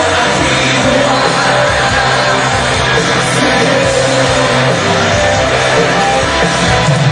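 Live rock band playing loud and steady, as heard from within a concert crowd.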